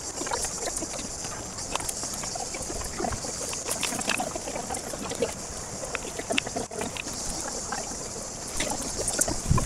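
Brush being rustled and footsteps on a dry dirt trail as branches and leaf litter are pushed aside: a run of quick small crackles and scrapes over a steady high hiss.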